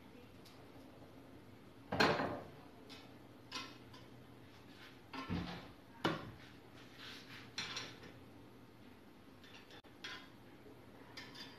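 Kitchen utensils clinking and knocking against a ridged grill pan and the counter as food is handled: about seven separate short strikes with pauses between, the loudest about two seconds in.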